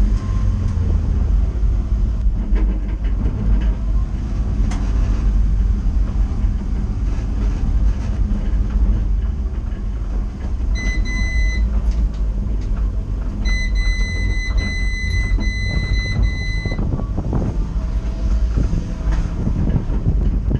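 Renault Twingo race car driving at low speed, heard from inside its stripped-out cabin: a steady low engine drone with road and cabin rattle. About halfway through, an electronic warning beep sounds once briefly, then repeats in a run of short beeps for about three seconds.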